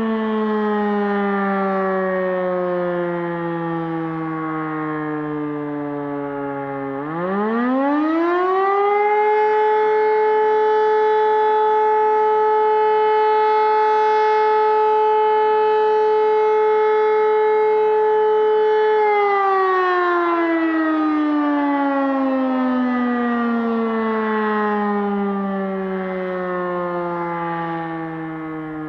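E57 electromechanical motor siren sounding the German 'Feueralarm' signal, the call for the volunteer fire brigade, here in a test alarm. The wailing tone first sinks as the siren coasts down. About seven seconds in it starts up again and climbs within about two seconds to a steady tone held for about ten seconds. It is then switched off, and the pitch falls slowly as the rotor winds down.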